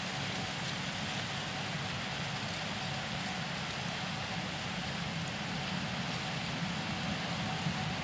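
A Gleaner S77 combine harvesting corn with a tractor and grain cart running alongside: a steady engine drone under a constant rushing hiss, with a faint steady whine.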